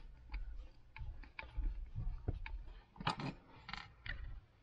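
Scattered light clicks and taps as a hex driver backs out the small screws of an RC crawler beadlock wheel and the wheel parts are set down on a wooden tabletop. A cluster of louder taps comes about three seconds in.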